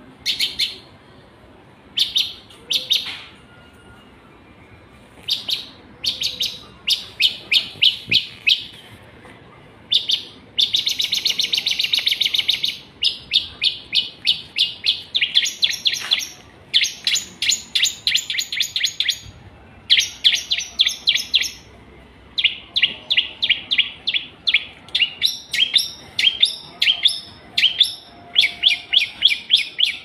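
Long-tailed shrike (cendet) singing in short bursts of fast, rapidly repeated high chattering notes with brief pauses between them. A longer, denser, buzzy phrase comes about a third of the way in.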